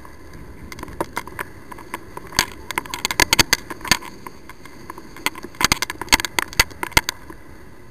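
Scooter riding noise picked up by an onboard camera's microphone: a steady low rush of wind and road noise, broken by irregular sharp crackles and knocks that come in clusters.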